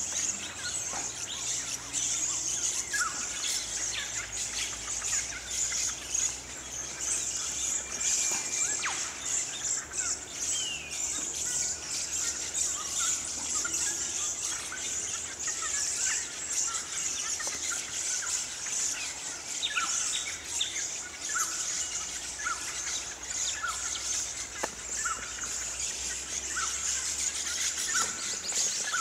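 A continuous chorus of high, shrill screeching calls from a large flock of Little Lorikeets, with scattered short chirps of other birds lower down.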